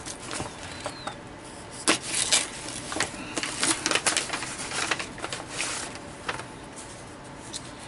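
Paper and packaging of a mailed parcel rustling and crinkling as it is opened by hand, with scattered sharp clicks and taps. The two loudest come about two seconds in.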